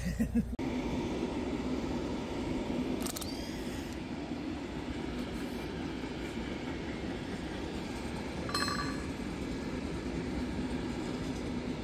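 Steady low rumble of a freight train rolling past, with brief higher-pitched sounds about three seconds in and again near nine seconds.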